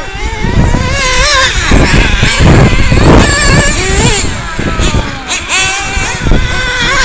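Several nitro RC off-road buggies racing, their small O.S. glow engines giving a high-pitched, overlapping whine that keeps rising and falling as they accelerate and back off around the dirt track.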